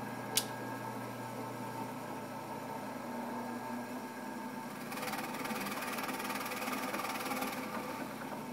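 Drill press motor running steadily, with a sharp click just after the start. About five seconds in, the bit bores into the wooden board, adding the noise of the bit cutting wood for about two and a half seconds.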